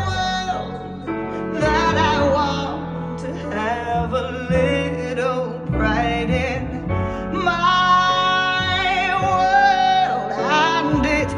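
A song playing: a sung vocal line with vibrato over sustained instrumental chords.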